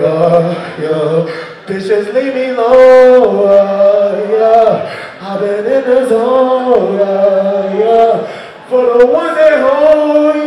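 A slow song sung by a male voice over a concert PA, with long held notes that slide from pitch to pitch in drawn-out phrases.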